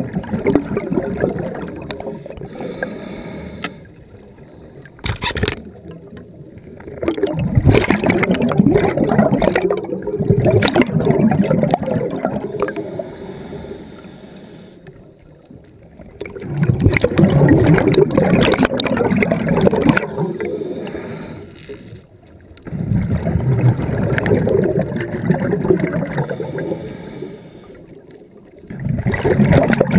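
Scuba diver breathing through a regulator underwater: loud gurgling bursts of exhaled bubbles come about every six or seven seconds, each lasting several seconds, with quieter stretches between them during the inhales. A single sharp click sounds about five seconds in.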